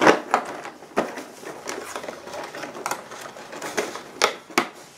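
Cardboard advent calendar being handled: an irregular run of clicks, taps and scrapes as a cardboard door is worked open.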